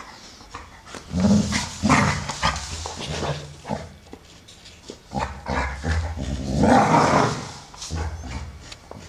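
Two American Staffordshire Terriers play-growling as they wrestle. The low growls come in two loud bouts, starting about a second in and again about five seconds in, with snuffling between.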